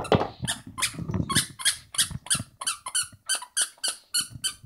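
A dog's squeaky toy squeaking in quick, steady repeats as the dog chews on it, about four to five squeaks a second.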